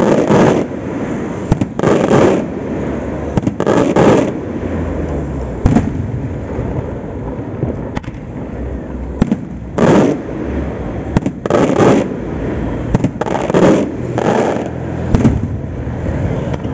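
Aerial fireworks shells bursting: a run of loud bangs about two seconds apart, a lull in the middle broken by single sharp cracks, then another close run of bangs.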